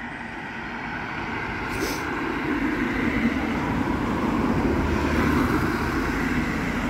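Road traffic passing close by, a vehicle's noise building steadily louder over several seconds and then easing slightly near the end.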